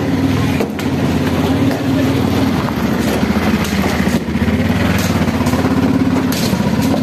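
Auto-rickshaw engine idling close by, a steady, fast, even chugging.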